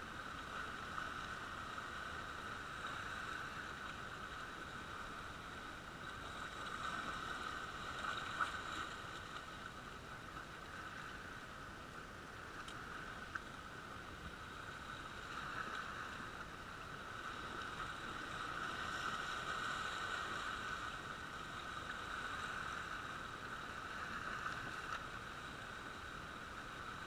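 Small sea waves washing over and around shoreline rocks, a steady rushing wash that swells and eases. Two short clicks, about eight and thirteen seconds in.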